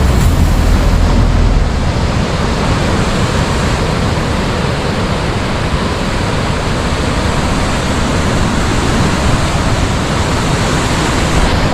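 Steady, loud rushing noise of sea surf and wind, with some low rumbling of wind on the microphone in the first second or two.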